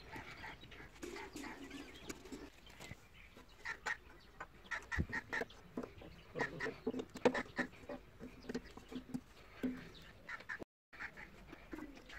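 Faint clucking and bird calls in the background, mixed with light metal clicks and taps from pliers working on the fan's blade hub and guard.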